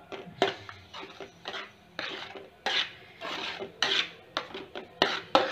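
A flat metal spatula scraping and stirring thick, thickening milk and custard apple pulp in a metal kadai. It goes in repeated strokes, with a few sharp clinks of metal on the pan, one just after the start and two near the end.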